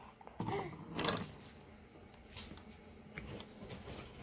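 A few faint knocks and clicks of small plastic toys and toy furniture being handled, with a brief faint voice about half a second in.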